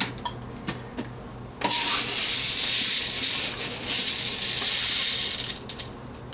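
Dry popcorn kernels scooped out of a glass jar with a measuring cup: a few light clicks, then a loud rattling hiss of hard kernels shifting and pouring for about four seconds, ending in scattered clicks.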